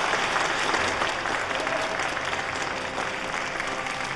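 Audience applauding, a sustained crackle of many hands clapping that eases slightly toward the end, over faint background music.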